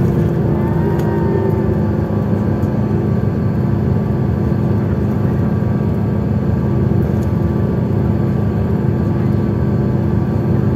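Cummins ISL8.9 six-cylinder diesel engine and Voith DIWA automatic driveline of a Sunlong SLK6112 bus running at a steady speed: a continuous low drone that holds one pitch throughout.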